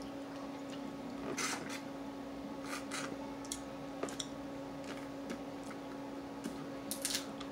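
Dungeness crab shells being cracked and picked apart by hand while eating: short, scattered crackles and crunches a second or two apart, a cluster of them near the end, over a steady hum.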